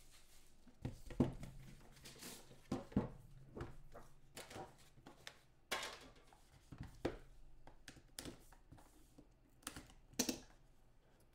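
A cardboard trading-card box being handled and opened by hand: scattered taps, scrapes and crinkles, with several sharper knocks spread through.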